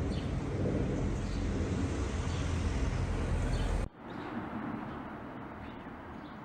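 Outdoor street ambience with a heavy low rumble. About four seconds in it cuts off sharply to quieter outdoor ambience with a few faint bird chirps.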